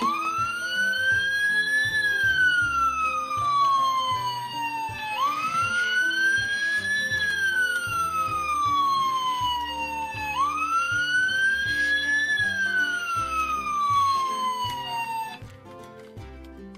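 Toy ambulance's electronic siren sounding: three long wails, each rising quickly and then falling slowly, stopping shortly before the end.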